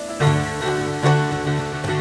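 Acoustic guitar strumming chords with keyboard accompaniment, an instrumental passage without singing. The strumming comes in strongly just after the start and then keeps a steady beat of about two to three strokes a second.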